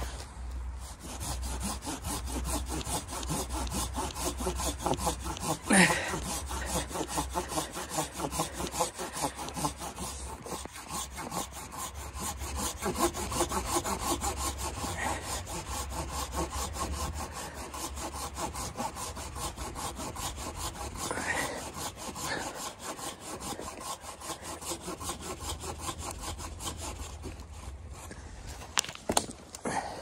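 Hand saw cutting through wood in steady back-and-forth strokes, with a louder scrape about six seconds in; the sawing stops near the end.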